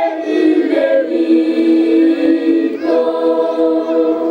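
Choir singing long held chords in several voice parts, moving to a new chord about three seconds in.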